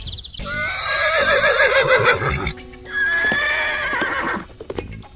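A horse whinnying: two long calls with a wavering, shaking pitch, the second starting about three seconds in.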